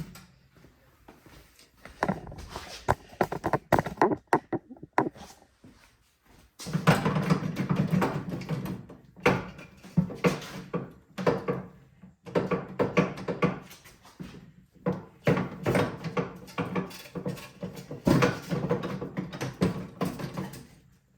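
Irregular clanks, knocks and rattles of metal parts and hand tools while a snowblower's wheel assembly is being reassembled. The sounds come thick and fast from about a third of the way in, with short pauses.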